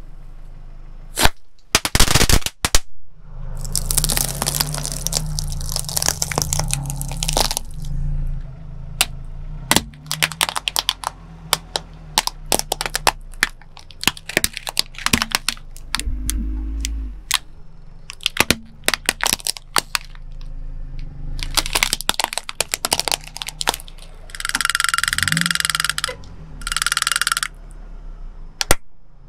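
A car tyre rolling over plastic toys on concrete and crushing them: a string of sharp cracks and crunches of breaking plastic, with a few very sharp cracks about two seconds in the loudest of all. The car's engine runs low underneath, and two short bursts of hiss come near the end.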